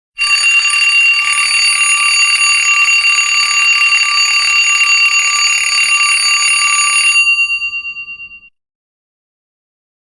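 Alarm-clock bell ringing loudly, its hammer striking rapidly for about seven seconds to signal that the timer has run out, then the bell rings out and fades over about a second.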